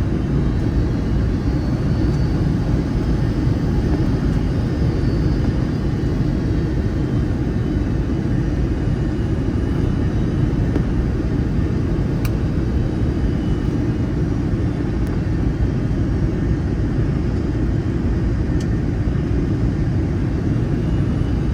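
Steady low rumble of a Boeing 757-200's engines and airframe heard inside the passenger cabin, with no rise or fall in level. A couple of faint ticks come through, one about halfway and one near the end.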